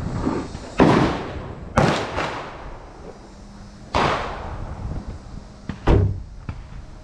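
Four gunshots from other shooters on the range, each a sharp crack with an echoing tail, irregularly spaced about one to two seconds apart.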